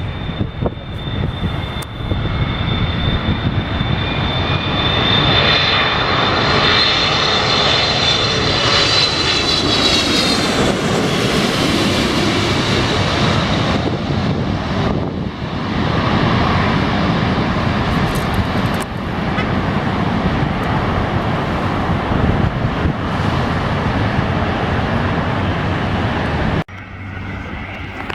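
Jet airliner passing low overhead, its engines running with a deep rumble under a high fan whine that bends downward in pitch as the plane goes by, about ten seconds in. The sound cuts off abruptly near the end.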